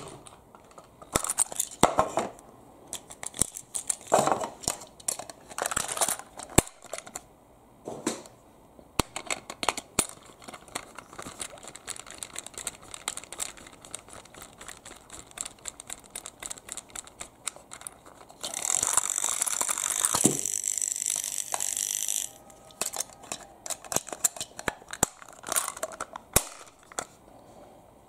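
Hard plastic clicks, knocks and rustles as a plastic Plarail toy bus is picked up and handled, followed by smaller ticks as a screwdriver works the screw on its underside. About two-thirds of the way through comes the loudest sound, a steady rasping hiss lasting about three and a half seconds.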